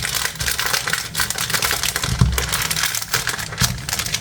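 Plastic packaging and small bags of diamond painting rhinestones being handled: crinkling with rapid, dense clicking and rattling, and a louder bump about two seconds in.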